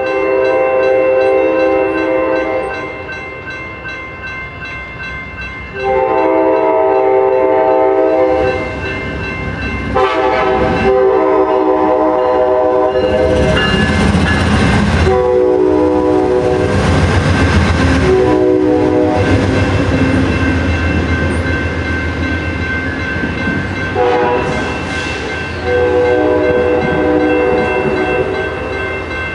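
Amtrak train led by two GE P42DC diesel locomotives blowing its Nathan K5LA air horn in several long blasts for a grade crossing, over a steady ringing crossing bell. About halfway through, the locomotives pass with a loud diesel rumble and wheel clatter.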